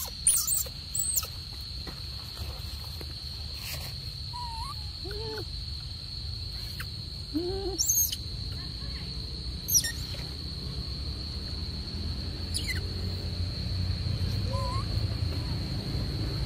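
Macaques calling now and then: a few soft, arched coo calls and several brief high squeaks, over a steady high-pitched whine in the background.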